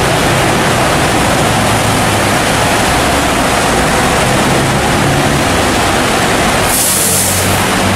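Steady, loud hiss of heavy rain and wind, with a faint low hum underneath. A brighter, sharper hiss swells for about a second near the end.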